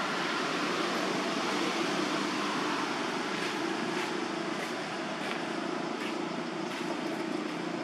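Steady outdoor background noise with a low hum underneath, and faint ticks about every two-thirds of a second in the second half.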